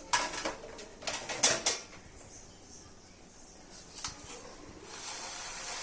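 A wall tap being handled: a few short scrapes and clicks, then a faint hiss that grows near the end.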